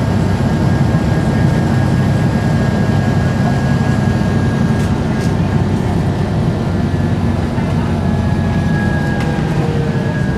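Volvo B7RLE single-decker bus running steadily, a constant low engine drone with a thin high whine over it that grows a little stronger near the end.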